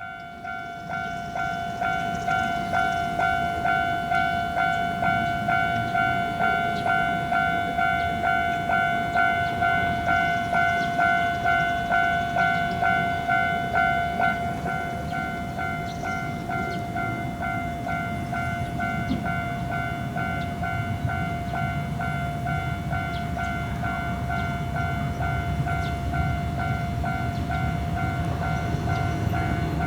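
Japanese level crossing warning bell ringing a steady "kan-kan" of about two strokes a second. From about halfway through, a passing train's low rumble builds up under it and nearly covers the bell's rhythm.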